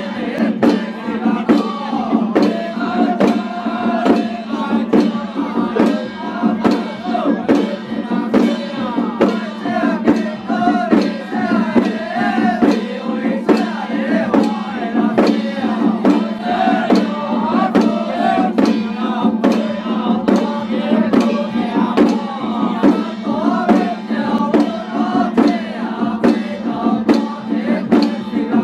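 A troupe of male voices chanting together in a ritual procession chant, to a steady beat of hand-held frame drums struck about two to three times a second. A steady low drone runs underneath.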